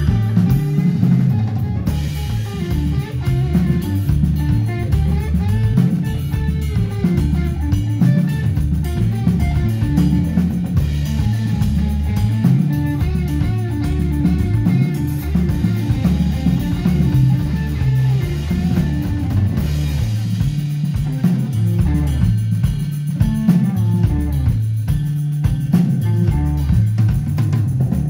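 Live rock band playing an instrumental passage: two electric guitars, bass guitar and drum kit, with a heavy, loud low end.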